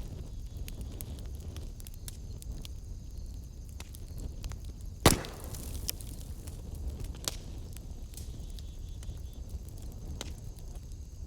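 Wood fire burning in a fireplace: a steady low rumble of flames with scattered crackles and one loud pop about five seconds in.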